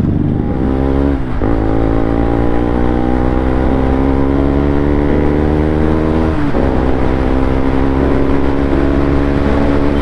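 Sport motorcycle engine running at low speed, its note dipping and then picking up again twice, about a second in and again past six seconds, as the rider eases through the shift or throttle.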